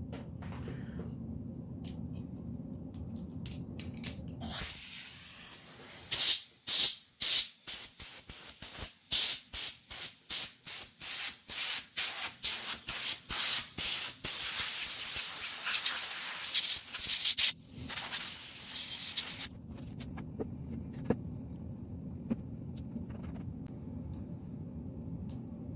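Compressed air blasted into a dusty laptop CPU cooling fan to clear it: a quick series of short hissing puffs, about two a second, then a longer steady blast, a brief break and one more blast before it stops.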